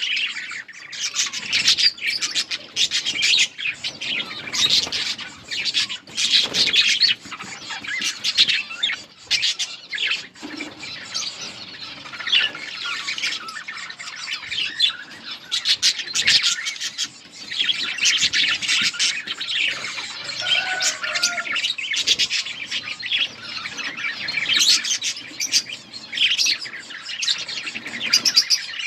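A colony of budgerigars chirping and chattering together, many birds at once in a dense, continuous warble.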